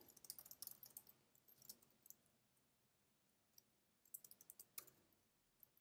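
Faint, scattered clicks of typing on a computer keyboard, in a cluster over the first two seconds and another about four seconds in.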